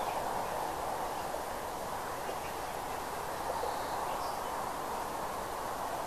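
Steady outdoor background hiss at a nest cam's microphone, with a few faint, brief calls from distant ducks and geese.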